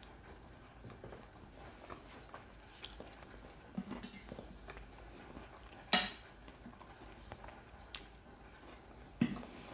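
A metal fork clinking and scraping against a plate a few times, the sharpest clink about six seconds in and another just after nine, with quiet chewing in between.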